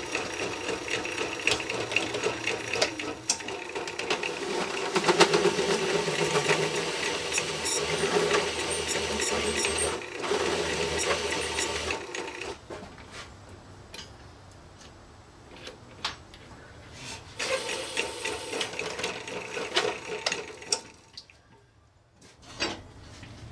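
Drill press running steadily as a quarter-inch twist bit and then a 7/8-inch hole saw cut through steel square tubing. About twelve seconds in, the steady motor sound stops and scattered clicks and scraping follow.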